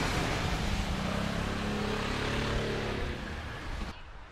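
Street traffic: a motor vehicle's engine running close by over the roar of the road, stopping suddenly near the end.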